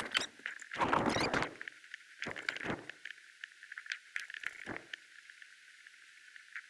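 Small metallic clicks, rattles and scrapes of hand tools working the external Torx bolts on a shift tower. They come in short bursts about a second in, around two and a half seconds, and near five seconds, with fainter ticks between.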